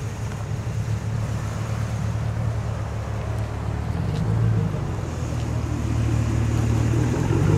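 Car engines running at low speed, a steady deep rumble: a Pontiac G8 sedan rolling past, swelling briefly about four seconds in, then a 1970 Chevelle SS's V8 growing louder near the end as it pulls up.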